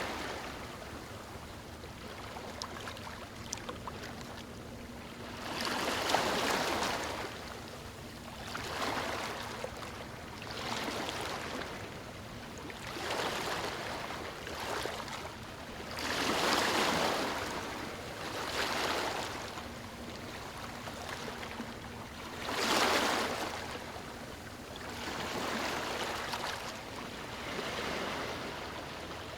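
Moving water rushing and splashing in repeated surges, swelling and fading about every two to three seconds over a steady wash.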